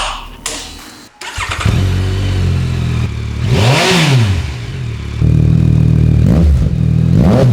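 Yamaha XSR900's three-cylinder engine idling through its exhaust, with a quick throttle blip that rises and falls about four seconds in and two smaller blips near the end. It gets noticeably louder a little past five seconds in.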